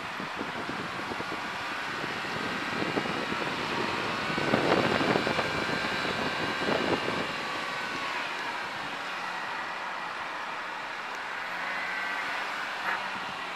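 Land Rover 4x4 driving slowly over a grass off-road course, heard from inside the cabin: a steady engine and driving noise, with a louder, rougher stretch of knocks and rattles from about four to seven seconds in.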